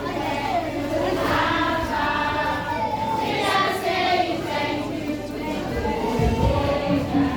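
Group of children singing together, with long held notes. A few low thumps come about six seconds in.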